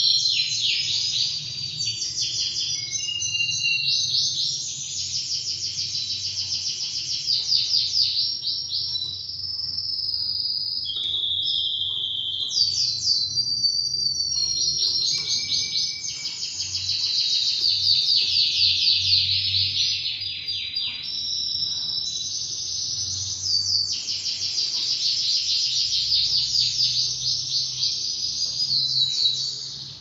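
Male Spanish timbrado canary singing a long, almost unbroken high-pitched song of fast trills and rolls, one phrase running straight into the next.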